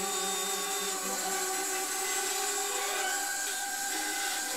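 Bandsaw running and cutting through a block of wood, a steady sound with a high hiss and several constant tones.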